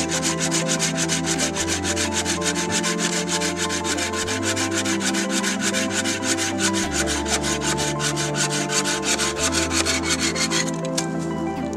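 Hand saw cutting through a log in quick, even back-and-forth strokes, which stop near the end. Steady background music plays underneath.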